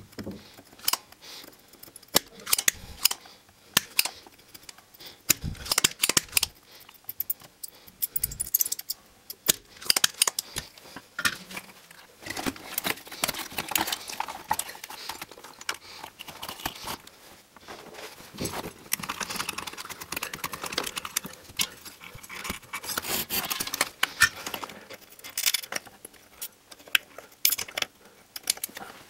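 Irregular clicking, tapping and scraping of a soldering iron and metal parts on a CRT TV's circuit board and heatsink as the horizontal output transistor is desoldered and worked loose, the sounds busiest in the middle stretch.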